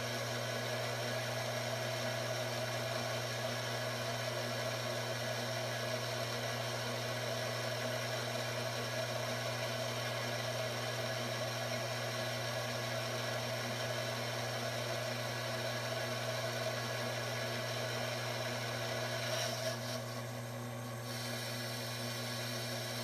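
Cowells 90 ME lathe running steadily, a constant motor hum and whir, while a small boring bar cuts inside a bore. The sound eases slightly about twenty seconds in.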